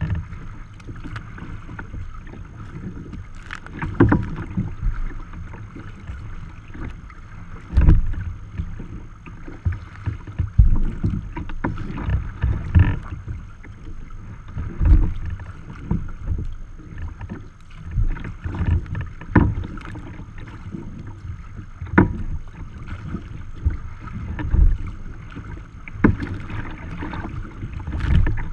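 Choppy water slapping and splashing against a sea kayak's hull, heard from the bow deck, with irregular low thumps every two to four seconds as the bow meets the waves.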